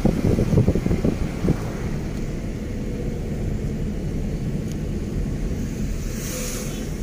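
Steady road and engine rumble of a moving car, heard from inside it. Wind buffets the microphone for the first second or so, then the rumble runs on evenly, with a brief hiss about six seconds in.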